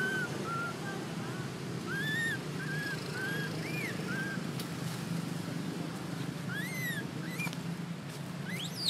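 Infant macaque crying in a string of short, high, arching whimpers, roughly one every half second, with a louder, sharply rising squeal near the end. A low steady hum runs underneath.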